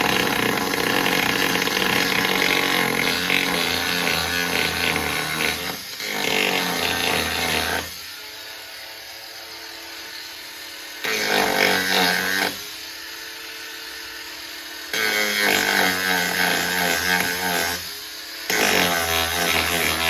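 Power tool cutting into a fibreglass boat's transom. The motor runs hard in several spells, its pitch wavering under load, with two quieter spells of lighter running in between.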